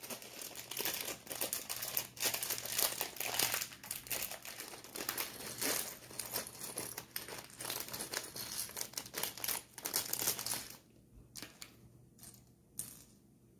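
A clear plastic bag of Lego pieces crinkling and rustling as it is opened and emptied, for about eleven seconds. After that, a few separate light clicks as the bricks are handled.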